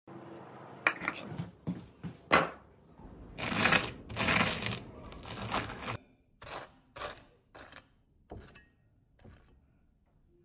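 A table knife scraping butter across crisp toast. It opens with a few sharp clicks and short scrapes, then has longer scraping strokes, then a string of shorter strokes that grow fainter and die away.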